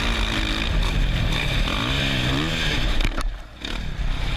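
Dirt bike engine running under throttle, its pitch rising and falling several times about two seconds in, then easing off briefly a little after three seconds before picking up again.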